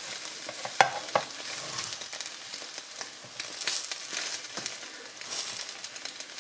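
Mushroom omelette sizzling in a hot frying pan while a slotted spatula scrapes under it and folds it over, with two sharp clacks of the spatula against the pan about a second in.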